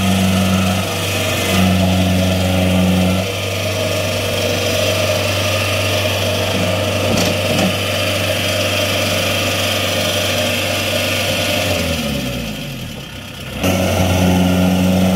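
Kubota combine harvester's diesel engine running steadily under load while the machine is bogged in deep paddy mud. Near the end its pitch falls and it quietens for about a second and a half, then it picks back up.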